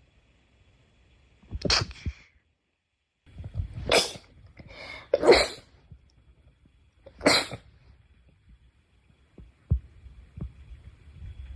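A run of sneezes: about four short, sharp sneezes roughly one to two seconds apart, followed near the end by a few soft low thumps.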